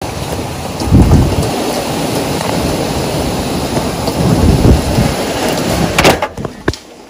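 Hurricane wind and heavy rain: a loud, steady rushing with two strong low gusts, about a second in and again around four and a half seconds. Near the end a sharp click, and the storm noise falls away.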